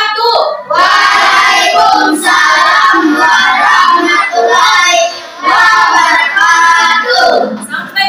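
A class of children singing a song together in unison, with a short break about five seconds in.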